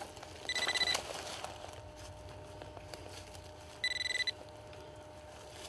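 Two short electronic beeps, about a second in and again near four seconds, each one steady high tone lasting about half a second: a metal detector pinpointer sounding on a buried lead musket ball in the dig hole.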